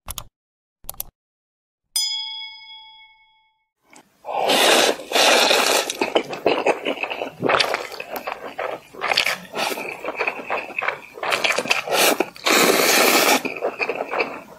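Two quick clicks, then a bell-like notification ding that rings out and fades over about a second and a half. From about four seconds in comes loud, close-miked slurping of noodles, in long pulls with short breaks between them.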